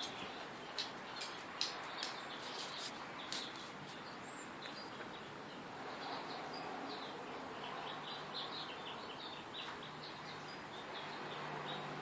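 Bird chirping in short high notes, with a quick run of rapid chirps in the second half. A few faint sharp clicks in the first few seconds.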